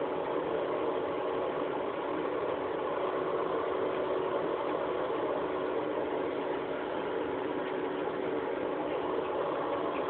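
A thin stream of water from a leaky bathtub faucet running steadily into the tub, an even rushing noise without separate drips.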